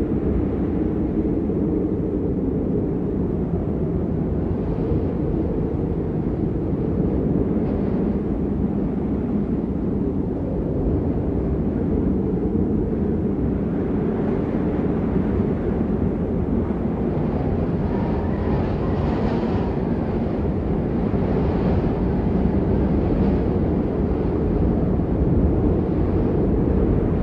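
Blizzard wind buffeting the microphone: a steady low rumble, with gusts bringing a fainter hiss in places.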